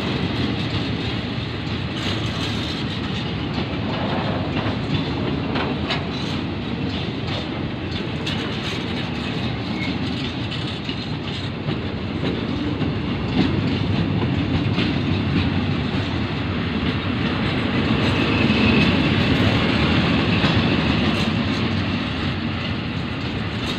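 Fuel tank wagons of a freight train rolling past close by: a steady rumble of steel wheels on rail, with scattered clicks.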